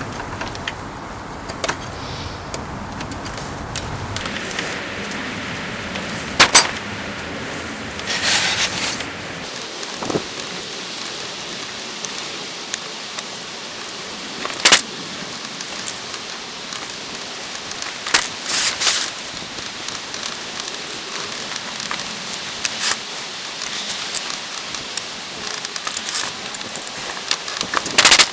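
Scattered metallic clinks, knocks and short rattles of tools and small engine parts being handled during reassembly of a Briggs & Stratton engine, over a steady hiss.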